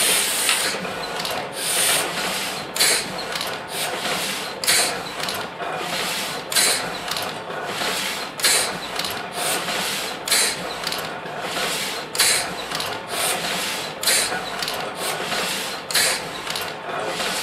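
Heidelberg Platen 'Windmill' letterpress running, its clamshell platen and windmill paper-feed arms cycling: a loud clack about every two seconds with rapid lighter clicking and rattling between.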